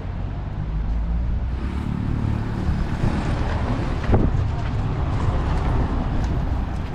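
Outdoor street noise with wind rumbling on the microphone and traffic running, plus one short knock about four seconds in.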